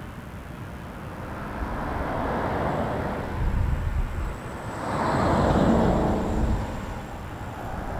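Airbus A330-343's Rolls-Royce Trent 700 jet engines on final approach: a rushing jet noise over a low rumble that swells, loudest about five to six seconds in, with a thin high whine coming in about three seconds in.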